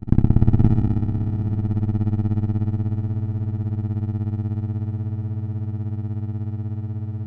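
Generated music from a 91-byte MS-DOS intro: a distorted, guitar-like chord struck loudly at the start and held, slowly fading with a fast wavering.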